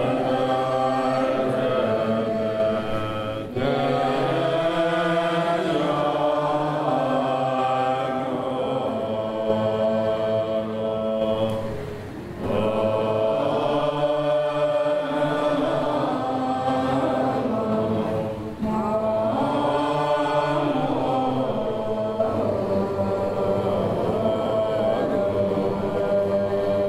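Tibetan Buddhist chant: a group of voices chanting a melodic mantra together in long held phrases, with brief breaks between phrases three times.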